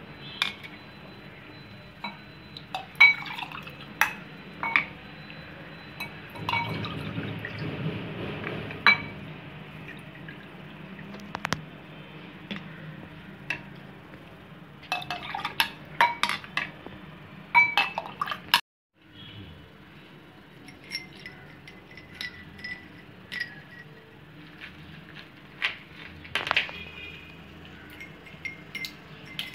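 A plastic ladle clinking and knocking against a glass bowl and drinking glasses as rose milk is ladled and poured, with ice cubes clinking into the glasses in the later part. The knocks come irregularly, with a brief gap of silence about two-thirds of the way through.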